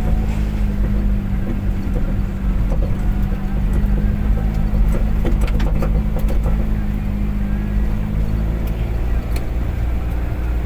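Car driving at a steady speed: a constant engine drone with road noise, and a few faint clicks about halfway through.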